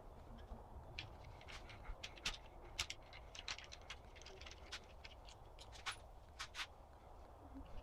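Faint, irregular small clicks and scrapes of hand work, as an old rubber handlebar grip is cut and worked off the bar, over a low steady hum.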